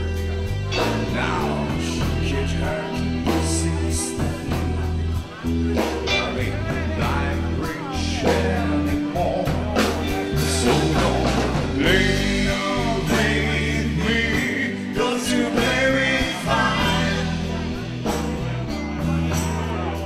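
Live rock band playing, with electric guitar over bass and drums.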